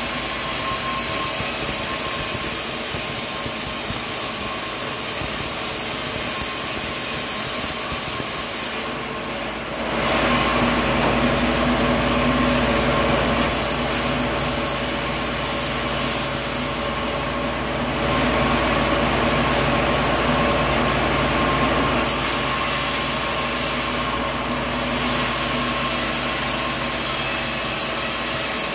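Sawmill machinery running steadily with a continuous mechanical drone and hum, the steady hiss over it dropping away and returning several times, with a short dip in level about nine seconds in.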